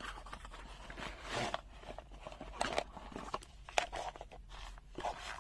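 Rustling and scattered light clicks as packaging and small items are handled and unpacked.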